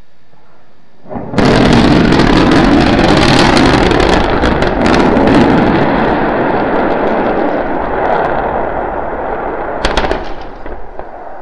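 Starship SN9 prototype hitting the landing pad and exploding: a sudden loud blast about a second in, then several seconds of deep rumble with sharp crackles that slowly fades, and one more sharp bang near the end.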